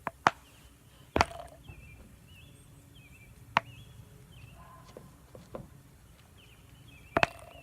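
Sharp clicks and taps, about five, from containers being handled while she works blindfolded, adding contact lens solution to the slime: the loudest come a little after a second in and near the end. Faint bird chirps sound between them.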